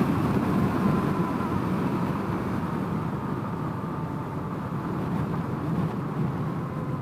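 Honda CRF250L's single-cylinder four-stroke engine running at road speed, mixed with wind rush over the helmet microphone. The engine tone slips slightly lower and the sound slowly eases off as the bike slows.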